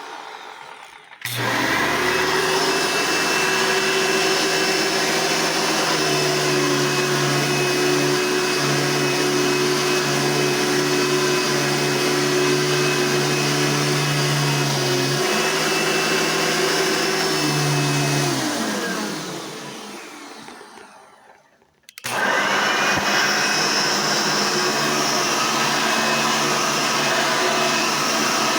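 Hoover Elite vacuum cleaners run one after another. One switches on about a second in and runs with a steady motor hum and whine, then is switched off and winds down with falling pitch. After a brief silence a second one switches on and runs steadily.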